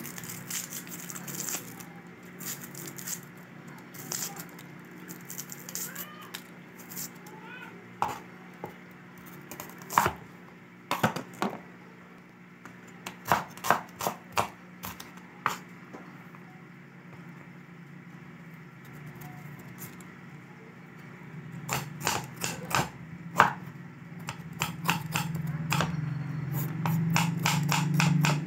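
Kitchen knife chopping tomato and onion on a wooden cutting board: scattered single knocks at first, then runs of quick chops near the end. A low hum grows louder under the chopping toward the end.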